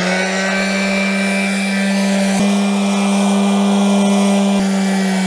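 Corded electric hand sander running steadily at full speed with an even hum, sanding a wooden deck-chair frame with 120-grit paper.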